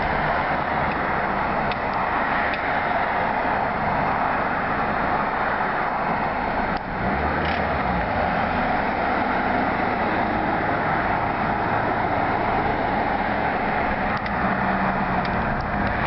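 Steady road and wind noise of a car driving at speed, heard from inside the cabin.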